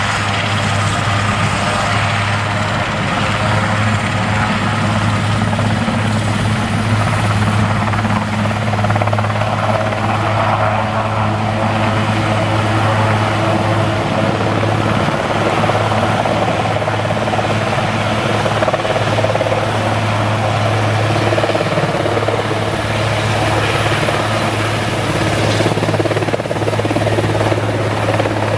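Airbus Super Puma military helicopter lifting off and hovering low, its twin turbines and main rotor at high power: a steady, loud, deep rotor drone under a broad roar, with a high turbine whine that rises in pitch over the first several seconds.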